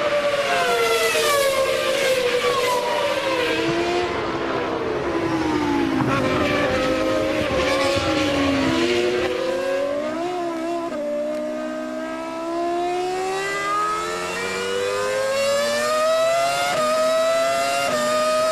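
Formula One cars' V10 engines at racing speed. In the first half the engine notes fall in pitch as the revs drop, with more than one car heard at once. From about the middle one engine climbs in a long rising whine under acceleration, with a short step in pitch near the end.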